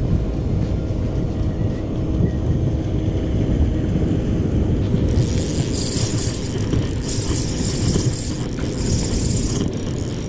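Steady low wind rumble on the microphone, with a spinning reel being cranked in three stretches of a few seconds each during the second half, a high rattling whir that starts and stops abruptly.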